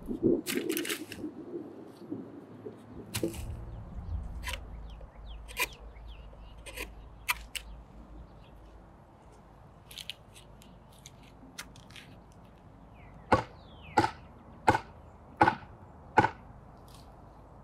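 Wood being worked with a knife: scattered chops and knocks into wood, then five loud wooden strikes in a steady rhythm, about 0.7 s apart, near the end.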